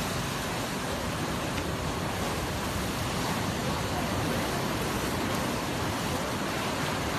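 Ocean surf breaking, heard as a steady, even rush of wave noise.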